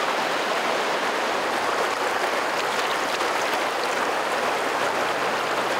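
Water of a shallow river riffle rushing over stones: a steady, even rush.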